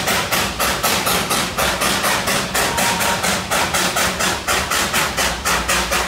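Darjeeling Himalayan Railway steam locomotive, a small B-class 0-4-0 saddle tank, chuffing in a quick, even rhythm of about five exhaust beats a second. It is working hard under the load of a heavy three-car train on the climb to Ghum.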